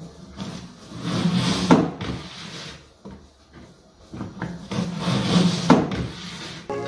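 Microfiber flat mop pad pushed through the plastic squeeze slot of its bucket, scraping against the slot's wiper edges. There are two long scraping strokes, each ending in a short squeak.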